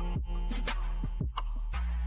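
Background music with a steady electronic beat: deep kick drums that drop in pitch, sharp percussion hits and held synth chords.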